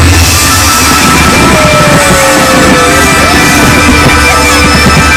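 Loud rock-style music with guitar, continuous and dense, with no pauses.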